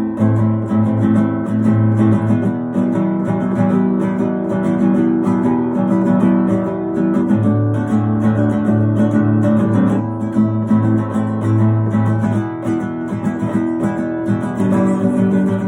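Acoustic guitar strummed in a steady rhythm, playing an instrumental break of chords.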